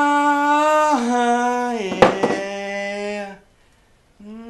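A long, wordless vocal howl, held on steady notes that step down in pitch several times before breaking off. A sharp knock comes about two seconds in, and a second, quieter howl starts near the end.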